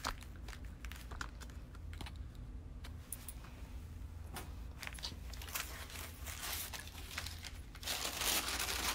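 Handling noises: scattered light clicks and knocks of small objects being moved about, with a longer rustle near the end, over a steady low hum.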